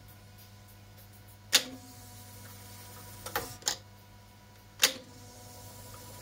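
Transport keys of a Rostov-105 reel-to-reel tape deck being pressed, each giving a sharp mechanical click: one about one and a half seconds in, a quick double click a little after three seconds, and another near five seconds. A faint steady hum from the deck runs underneath.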